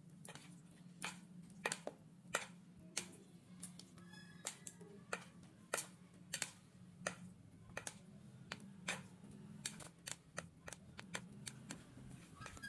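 Sharp, irregular clicks of a utensil against a bowl while instant noodles are stirred and mixed with their sauce, about one or two clicks a second over a steady low hum.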